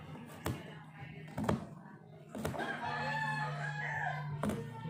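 Knife blade cutting garlic cloves against a plate, a few sharp clicks about a second apart. A long, pitched rooster crow rises in the background over the second half.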